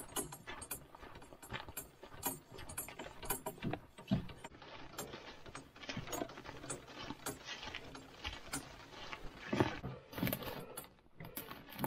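Irregular rustling with many small clicks, knocks and rattles, as of footsteps through brush and strapped-down gear shifting while a canoe is carried over a portage trail.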